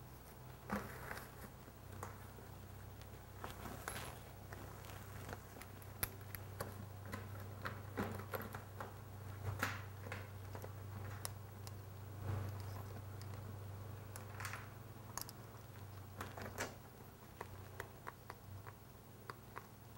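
Plastic tarp rustling, with scattered light clicks and taps as it is handled and fastened, over a low steady hum.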